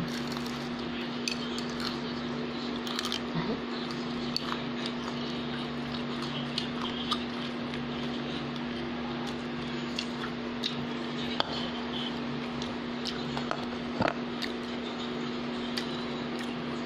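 Close-up chewing of fried togue (bean sprouts): soft, scattered mouth clicks and crunches over a steady low hum. The sharpest click comes about fourteen seconds in.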